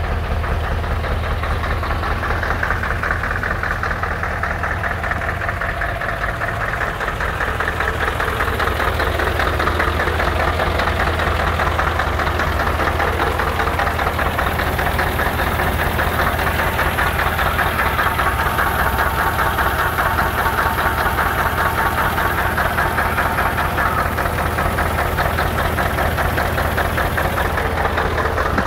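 Scania R144.480's 14-litre V8 diesel engine idling steadily, getting a little louder about eight seconds in.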